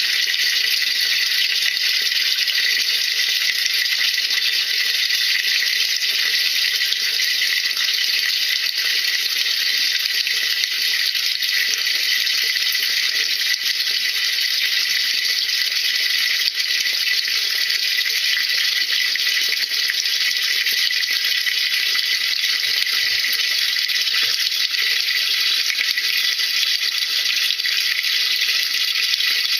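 Steady hiss of water with a fine crackle in a washing machine drum being cleaned with sodium percarbonate, going on evenly without a break.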